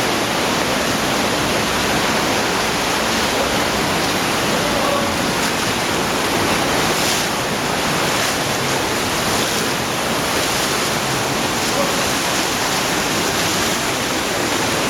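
Easegill's underground cave stream in near flood, rushing past in a loud, steady wash of water noise.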